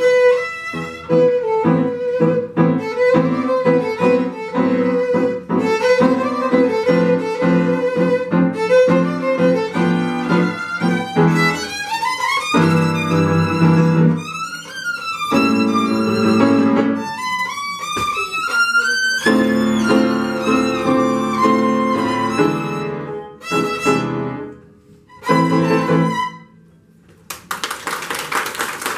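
Violin played with piano accompaniment, with fast rising runs and a close of a few short, separated chords. The last couple of seconds are audience applause.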